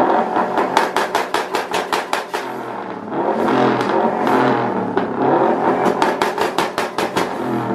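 Subaru WRX's turbocharged flat-four revved hard twice, each rev breaking into a run of rapid exhaust crackles, about ten a second.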